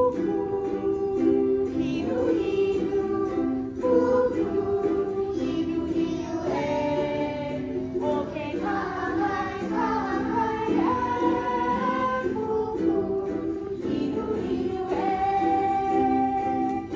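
A Hawaiian hula song sung with ukulele accompaniment: a steady, even melody over plucked chords.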